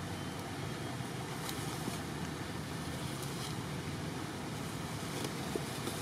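Steady outdoor background noise: an even hiss with a low rumble underneath and a few faint clicks.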